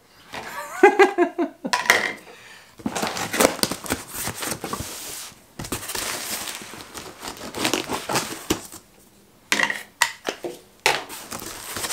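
A tape-sealed cardboard shipping box being opened: packing tape cut with a box cutter and the cardboard flaps pulled open, in bouts of scraping, rustling and crinkling with a short pause near the end.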